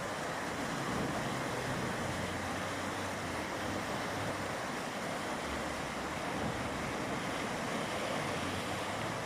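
Mountain river flowing, a steady even rushing of water.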